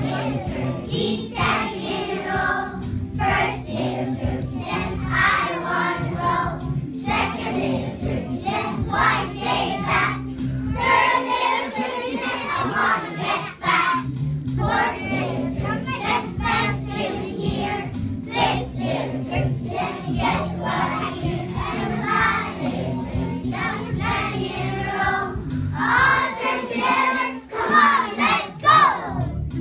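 A group of young children singing a song in unison over a musical accompaniment.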